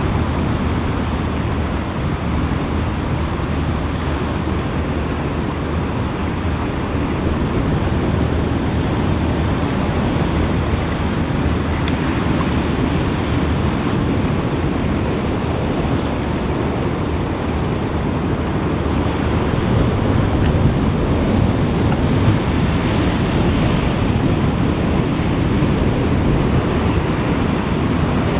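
Steady rushing noise of wind and open-sea water with a low rumble, with no distinct calls or splashes standing out. It grows a little louder after several seconds and again about two-thirds of the way through.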